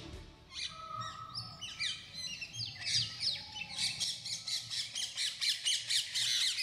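Birds chirping: many short, quick, falling chirps that start about a second in and grow thicker and busier toward the end, like a dawn chorus.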